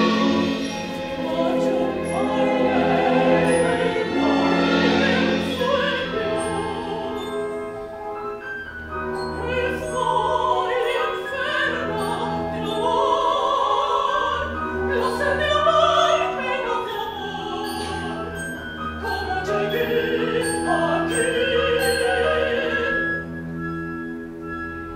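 Opera singer with orchestra: a sung line with wide vibrato over held orchestral chords. It rises to high held notes in the middle and again near the end.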